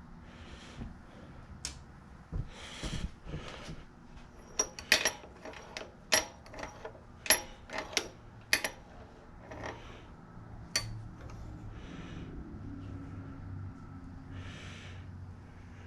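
Steel sockets and hand tools clinking as they are picked up and handled: a quick run of about a dozen sharp metallic clinks in the middle, then one more a little later.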